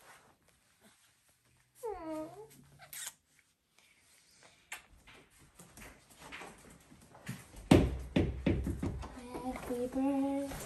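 A baby's short whiny vocalisation, falling in pitch, about two seconds in. Later come rustling and a sharp knock as balloons are carried through a doorway, and a voice starts humming a tune near the end.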